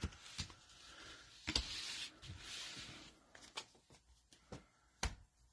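Trading cards being handled: a soft rustle of cards sliding against each other, with a few light clicks at the start, about a second and a half in, and about five seconds in.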